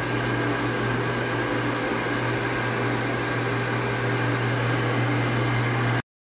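Pedrollo 1.5 HP electric water pump running with a steady hum. The sound cuts off abruptly near the end.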